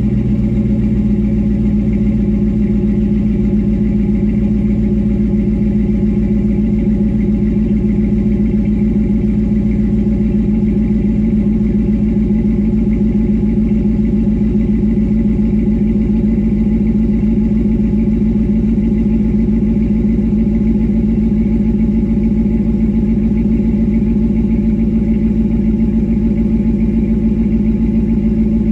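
Dodge Ram 1500's 5.7 L Hemi V8 idling steadily just after a cold start, heard at the dual exhaust tips.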